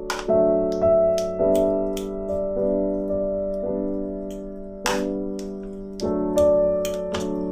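Background music: piano or electric-piano chords struck every second or so, each note dying away before the next.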